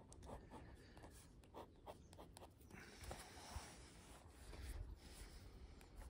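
Sailor Fude De Mannen bent-nib fountain pen scratching faintly across sketchbook paper in short strokes as it draws.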